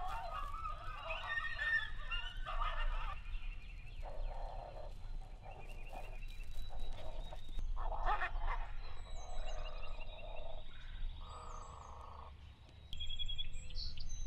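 A string of animal calls, one after another at roughly one-second spacing, wavering in pitch at first, with faint high chirps above them.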